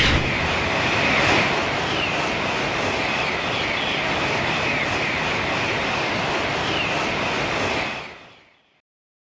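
Sound effect of a Shinkansen bullet train running past: a steady rushing noise that fades away about eight seconds in.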